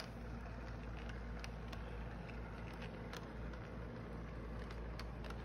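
O gauge model train running along its track: a steady low motor hum, with light irregular clicks.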